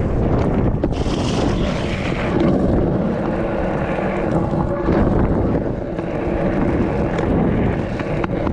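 Stunt scooter wheels rolling fast over wet, rough asphalt, with wind buffeting the microphone.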